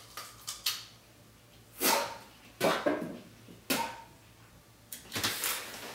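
A man's short, sharp breaths through the mouth and nose, four or five of them about a second apart, with a few small clicks at the start.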